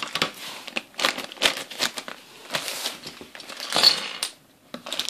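Thin clear plastic bag crinkling and rustling in the hands as it is opened, in irregular crackles. Around four seconds in, the loudest crackle comes as small plastic toy parts are tipped out of the bag onto the table.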